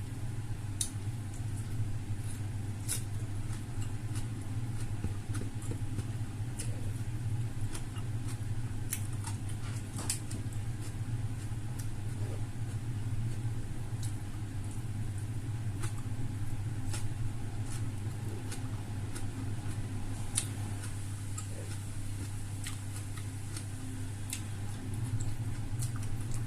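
Close-mic eating sounds: chewing fried chicken, with scattered sharp clicks and smacks at irregular intervals over a steady low hum.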